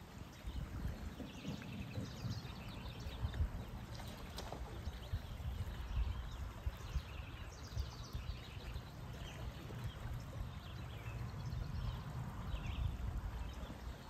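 River water running and splashing through a broken concrete dam, a steady rushing noise with a low rumble, while small birds chirp over it again and again.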